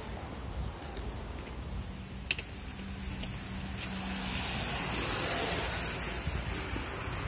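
Road traffic: a passing vehicle's tyre noise swells to its loudest about five seconds in, over a steady low rumble, with a single sharp click about two seconds in.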